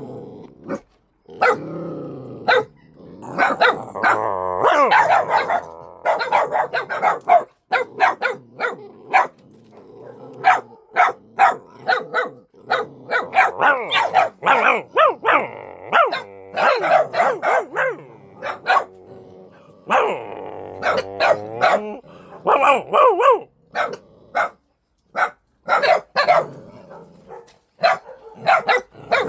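Repeated sharp dog barks with longer wavering howls and whines in between, as dogs react to someone barking at them.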